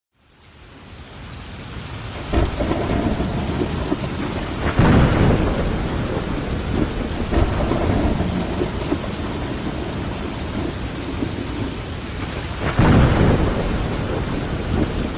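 Steady rain pattering on a window glass, fading in from silence over the first two seconds, with low rumbles of thunder swelling three times.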